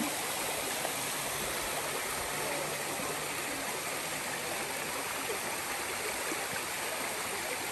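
Shallow stream running over rocks, a steady, even sound of flowing water.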